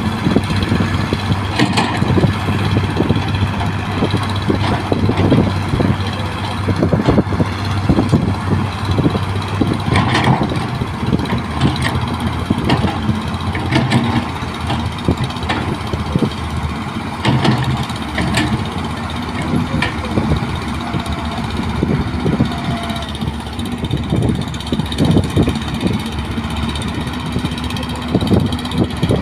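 Excavator diesel engine running, with frequent knocks and clanks over it; the engine note changes about ten seconds in.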